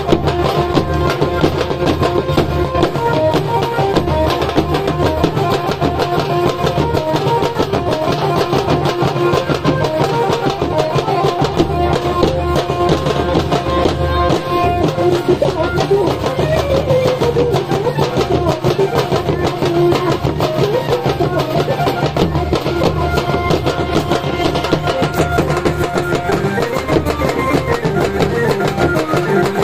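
A group of folk drummers playing fast, steady rhythms together on barrel drums and stick-struck frame drums, with a held melody line over the drumming.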